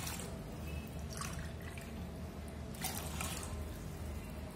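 Water poured from a steel tumbler into a pressure cooker of soaked rice and moong dal, with a few brief splashes and drips.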